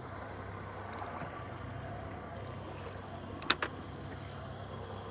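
Steady low hum and wash of a fishing boat on the water, with two sharp knocks close together about three and a half seconds in.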